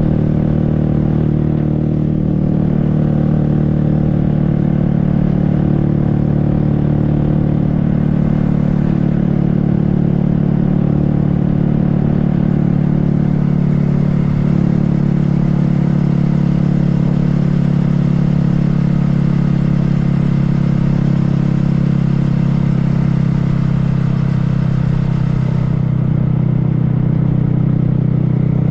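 Honda Grom's 125 cc single-cylinder four-stroke engine running at a steady cruise, its pitch holding level, over a steady rush of noise.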